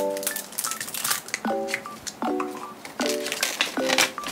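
Light background music with plucked chords, over paper crinkling and rustling as the folded paper leaflet from a plastic gacha capsule is pulled out and unfolded.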